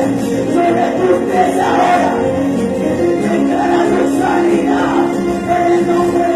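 Congregational worship music: a group singing together over sustained instrumental backing, with no clear spoken words.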